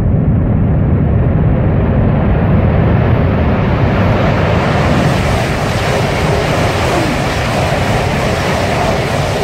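ICE high-speed train rushing through a tunnel towards the portal, a loud, steady noise that sounds like a passing jet plane. The rush grows hissier as the train nears the tunnel mouth, and the train comes out near the end.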